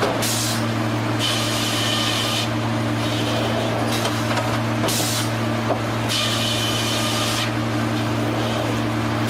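Sawmill machinery running with a steady low hum, broken by repeated bursts of high hissing noise about every one to two seconds, as the saw cuts through wood.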